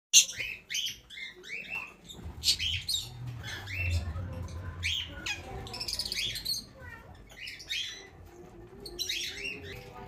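Alexandrine parakeets calling: a string of short, sharp calls, several coming in quick runs, with a pause of about two seconds near 7 s.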